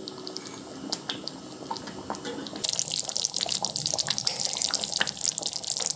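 Thick palak paneer gravy boiling in a kadhai, its bubbles popping and plopping. About two and a half seconds in, the popping grows busier, with a hiss.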